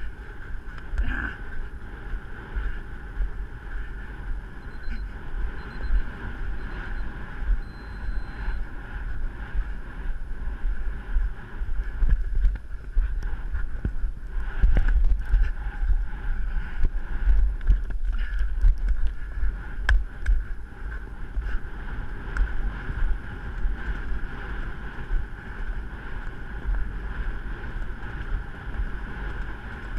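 Wind rushing over the microphone of a camera carried by a rider on a moving horse, with low irregular thuds underneath.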